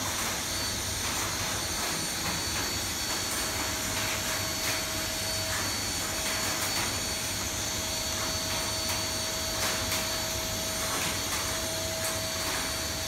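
A vacuum cleaner running steadily as it draws the air out of an aluminium-foil barrier bag wrapped over a machine, with a steady tone joining about four seconds in and faint crinkling ticks of the foil.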